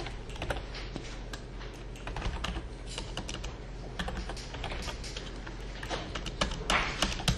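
Computer keyboard keys clicking in short, irregular runs as a web address is typed.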